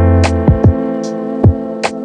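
Background music: drum hits over sustained bass and guitar chords.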